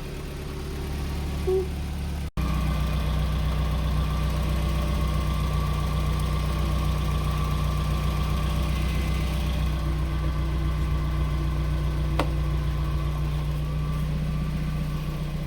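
Mazda Miata's 1.6-litre four-cylinder engine idling steadily while it warms up, its cooling system freshly refilled and being bled of air. The sound drops out for an instant a little over two seconds in.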